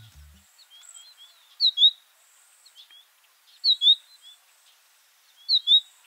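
American goldfinch calling with its 'potato chip' phrase: a short burst of quick, high notes about every two seconds, with softer twitters in between.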